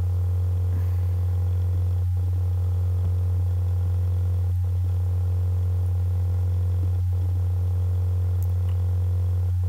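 Steady electrical hum from the recording setup: a constant low tone with fainter higher overtones. The upper overtones briefly drop out about every two and a half seconds.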